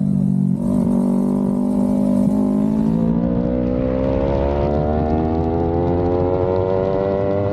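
Yamaha MT-03 motorcycle engine running, with a brief break in the sound about half a second in. Its pitch then holds low and from about three seconds in climbs steadily as it accelerates.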